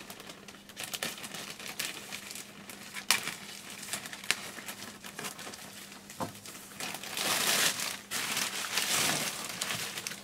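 Plastic courier bag crinkling and rustling as it is pulled open by hand, with a couple of sharp crackles about three and four seconds in. The rustling grows louder over the last few seconds as the bag is pulled back from a bubble-wrapped box.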